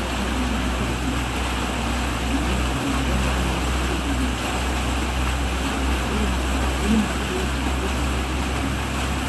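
A van's engine running steadily as it drives through floodwater, with a continuous rush and splash of water thrown up by its wheels.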